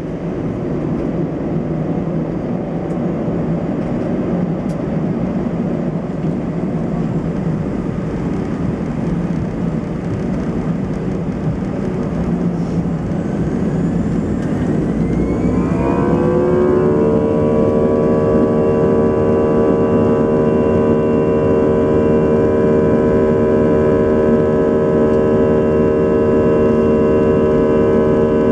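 Airbus A320 turbofan engine heard from a window seat over the wing: a steady rumble at first, then about fifteen seconds in the engine spools up with a rising whine that settles into a louder, steady drone of several held tones at takeoff thrust.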